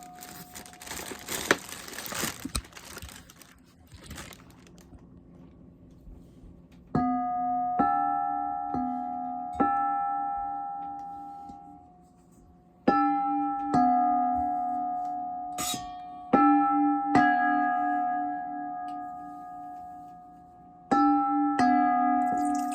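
Water splashing into a metal bowl for the first few seconds. Then metal bowls are struck in three runs of quick strikes, two bowls of slightly different pitch alternating, each ringing on with a wavering, pulsing hum.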